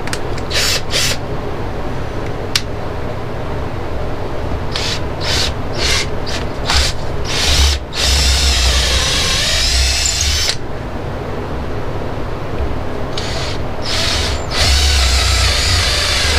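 Power drill boring centre holes in wooden clock dials, running in several stretches that start and stop as the bit cuts into the wood.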